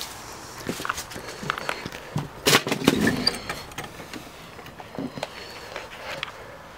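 Scattered knocks and rustles of someone handling shut barn doors, with the loudest knocks about two and a half to three seconds in.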